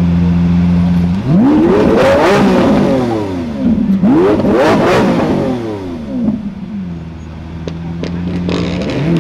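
A car engine idling, then revved hard twice in a row, the pitch climbing and dropping back each time, with a short blip of the throttle after and a return to idle; another rev begins near the end.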